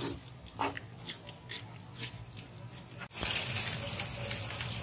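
A wooden spatula stirs and scrapes dry toasted rice grains in a metal wok, giving short scratchy scrapes. About three seconds in, a steady rushing hiss starts suddenly as coconut milk is poured into the wok.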